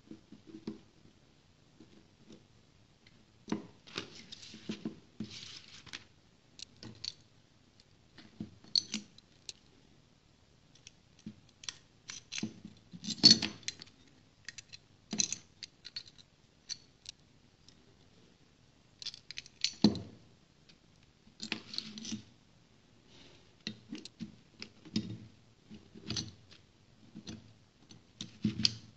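Small metal parts being handled and fitted together by hand on a tabletop: irregular clicks, taps and short scrapes as an aluminium bracket, a screwdriver and a stepper motor with its shaft coupling are picked up and set against each other. A few sharper metal knocks stand out, the loudest about halfway and two-thirds through.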